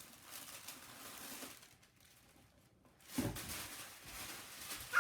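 Packaging rustling and crinkling as items are handled in an opened shipping box, louder from about three seconds in.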